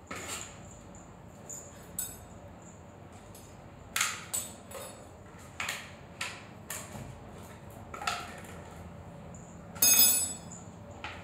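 Scattered sharp clicks and taps of golden retriever puppies' claws and paws on a hard tile floor as they play, with a louder clatter about ten seconds in.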